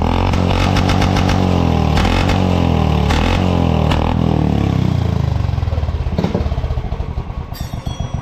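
Royal Enfield Classic 350's single-cylinder engine running loud at raised revs through an aftermarket straight-cut exhaust, with a few sharp clacks, then the revs fall away about five seconds in and it settles into an even thumping idle.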